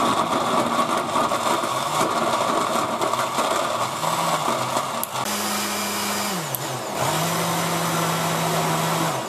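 SilverCrest countertop blender running, its motor churning tomatoes and soaked bread into a thick purée. The motor's hum shifts in pitch and the sound gets a little louder about seven seconds in.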